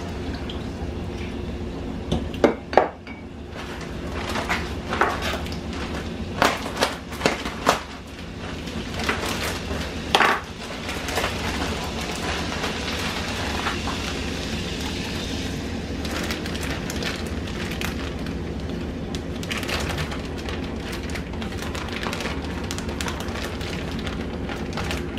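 Clinks and knocks of a glass oil bottle and utensils against an enamel pan, then, from about halfway through, butter and grapeseed oil sizzling steadily in the hot pan.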